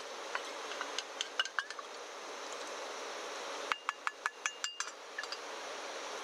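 Mapo tofu simmering in a wok on a camping gas stove: a steady hiss with small pops and bubbles. About four seconds in comes a quick run of ringing metal clinks as a small stainless cup is emptied into the wok.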